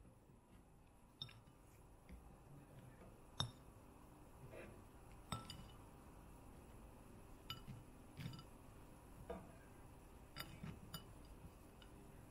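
Faint light clinks of a pressed-glass plate as madeleines are set down on it one by one, with several separate clinks spread out and the sharpest about three and a half seconds in.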